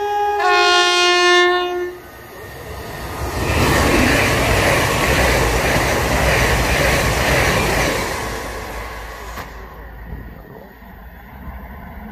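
A CrossCountry Voyager diesel multiple unit sounds a two-tone horn blast, then runs through the station at speed without stopping. The loud rushing noise of its passage fades away over the last few seconds.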